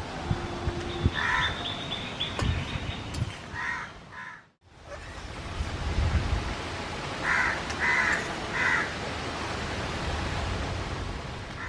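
Crows cawing repeatedly, a call about a second and a half in, two quick ones around four seconds, and three in a row a little past seven seconds. Under them runs a steady hiss from the boiling pot, with a few sharp metal clicks of a ladle against the wok in the first second.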